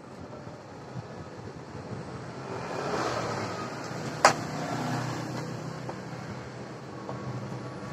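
Rumble of a passing motor vehicle, swelling and fading, with one sharp click about four seconds in.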